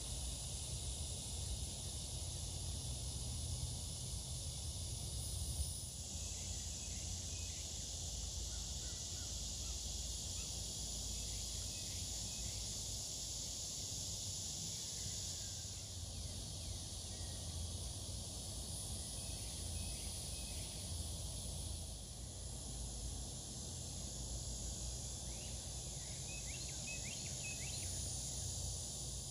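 Outdoor summer ambience: a steady high insect drone with a few faint bird chirps over a low rumble.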